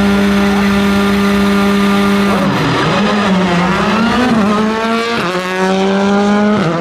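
Skoda Fabia R5 rally car's turbocharged 1.6-litre four-cylinder engine held at steady high revs, then dipping and wavering. It then accelerates hard, the revs climbing in rising sweeps broken by two upshifts, the second near the end.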